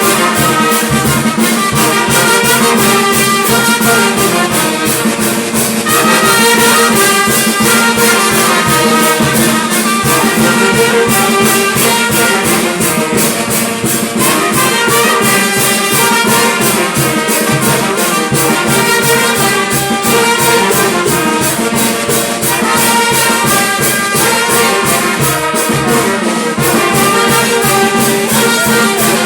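Brass band music: trumpets and trombones playing a melody over a steady percussion beat.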